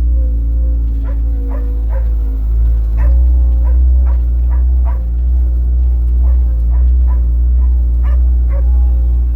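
A dog yipping in short sharp calls, about one or two a second, over a loud steady low drone like a running engine.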